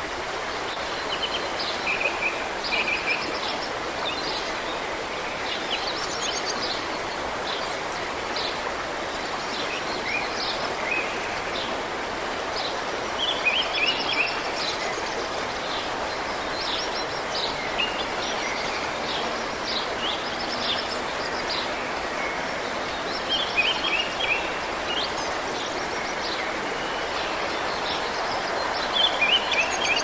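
Mountain stream rushing steadily over rocks in small rapids, with songbirds singing short high chirps and trills in clusters every few seconds.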